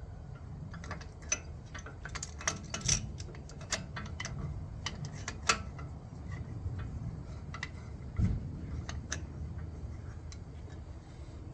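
Irregular clicks and clinks of a brake caliper press and an old brake shoe being handled and fitted against the caliper piston, with a dull thud about eight seconds in.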